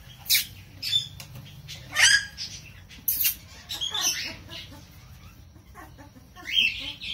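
Pomeranian puppies squeaking: about six short, high-pitched yelps, some rising in pitch, the loudest about two seconds in.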